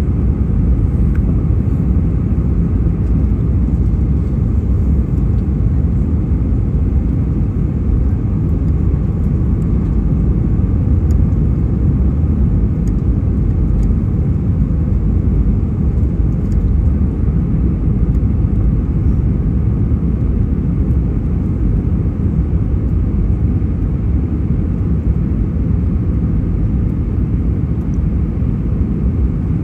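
Steady low rumble of an Airbus A319-131 heard from inside the cabin, even throughout with no distinct events.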